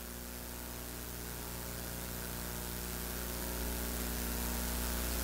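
Steady electrical mains hum with hiss from the microphone and sound system, slowly getting louder.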